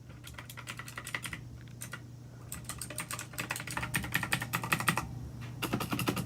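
Fast typing on a mechanical keyboard: dense, irregular runs of clacky keystrokes that get busier about halfway through, over a faint steady low hum.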